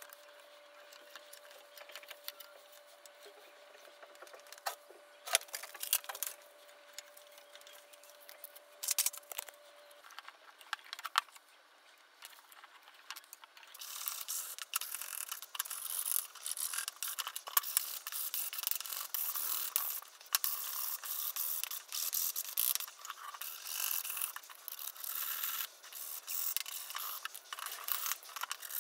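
Scattered sharp knocks and clicks as wooden and metal jig parts are handled. About halfway through, rapid scraping rub strokes start as the end of a small hardwood block is smoothed by hand with an abrasive tool.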